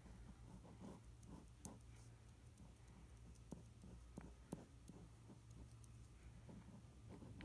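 Faint scratching of a Bic ballpoint pen drawing short strokes on paper, with a few light ticks, over a low steady hum.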